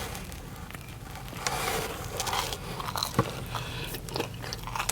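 Biting into a chicken Parmesan meatball sub and chewing close to the microphone, with soft crunches and small clicks; the bite is mostly bread and cheese.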